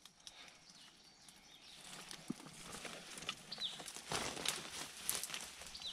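Leaves and twigs rustling and crackling as a person pushes on foot through blackberry briars and undergrowth, growing louder about halfway through.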